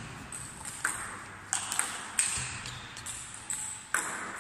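Table tennis rally: the celluloid ball's sharp clicks off bats and table, about every half second, each ringing briefly in the hall.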